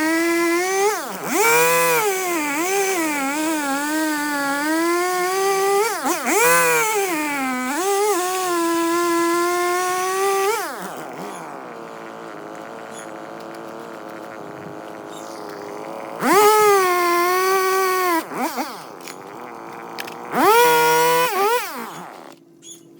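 A series of long, drawn-out howls, each wavering up and down in pitch and sliding up or down at its start and end. There is a quieter stretch in the middle, then two shorter rising-and-falling howls near the end.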